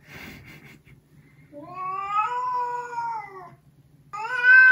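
Domestic cat yowling in two long, drawn-out calls: the first rises and falls in pitch over about two seconds, and the second, louder one begins near the end. It is the tense yowl of a cat warning off a newly introduced cat.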